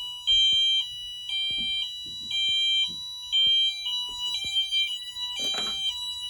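Wheelock MT multi-tone horn sounding its high-low tone, two pitches alternating about every half second. About five and a half seconds in, a brief noise cuts in.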